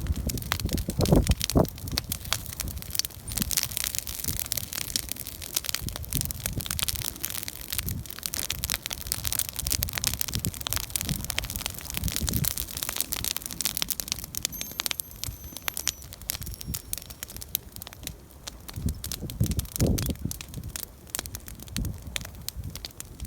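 Wood campfire burning, crackling and snapping irregularly, with a few low thuds.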